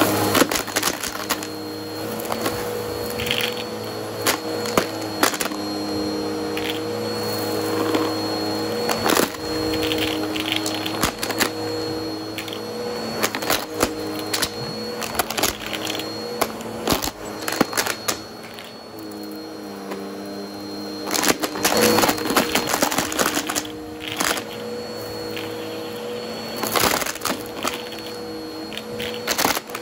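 Bissell CleanView OnePass upright vacuum running with a steady motor hum and thin whine, while pennies clatter and crack in frequent sharp rattles as they are sucked up through the brush roll.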